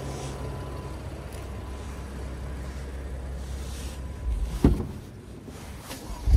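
BMW M2 Competition's twin-turbo straight-six idling with a steady low hum. Two loud thumps come about four and a half seconds in and again near the end.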